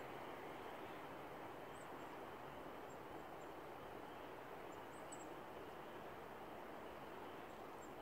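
Steady outdoor background hiss with a few faint, short, high-pitched bird chirps scattered through it, a small cluster about five seconds in.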